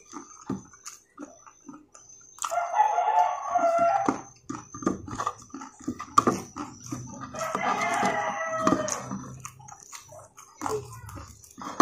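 A rooster crowing twice, each crow about a second and a half long, over close crunching and chewing of crispy fried chicken.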